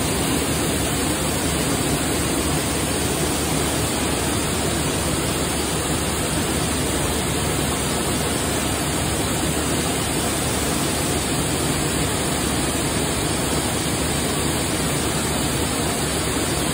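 Wool spinning frames running, their many spindles twisting wool into single-ply yarn, making a steady, even whirring rush that does not change.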